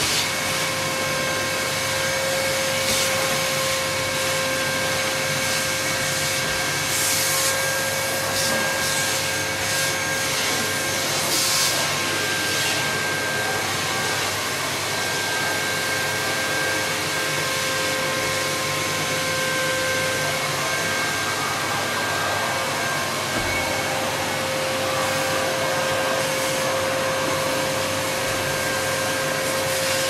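Vacuum cleaner running steadily, its motor giving a constant whine over a loud rushing hiss, with a few brief louder hisses in the first half.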